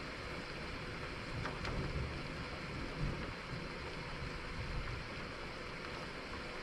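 Distant thunder rumbling low, swelling and fading through the middle, over a steady hiss of rain.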